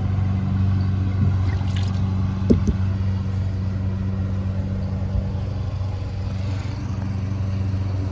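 An engine idling steadily, a constant low drone, with a couple of light knocks about two and a half seconds in.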